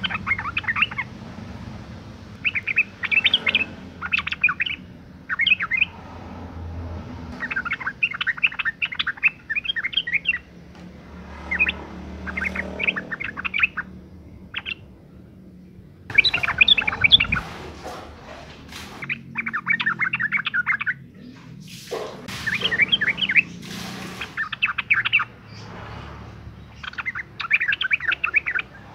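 Yellow-vented bulbul (trucukan) calling: repeated bursts of quick, bubbly chattering notes, each a second or two long with short pauses between. This is the call of a female in breeding condition, used as a lure to set male bulbuls singing.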